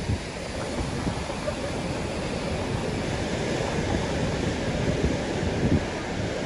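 Heavy surf breaking along the shore, a steady wash of waves, with wind gusting against the microphone.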